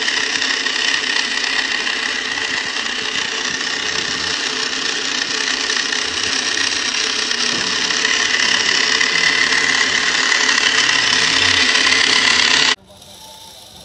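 A steady engine-like drone from the scale RC truck, running evenly at one pitch with no revving, then cutting off abruptly about a second before the end.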